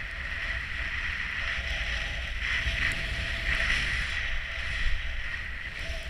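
Skis hissing through fresh snow on a downhill run, swelling louder through the turns around the middle, with wind rumbling on the microphone underneath.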